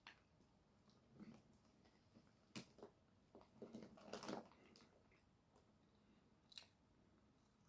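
Faint close-up chewing: scattered wet mouth clicks and smacks, busiest around the middle.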